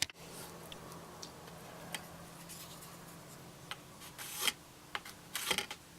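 Faint rubbing and scattered light clicks, with two short louder scuffs near the end, over a low steady hum.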